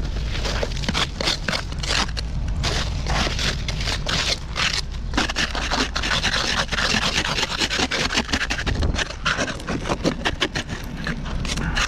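Hand-held ice scraper scraping crusted sleet and ice off car window glass in rapid, repeated strokes.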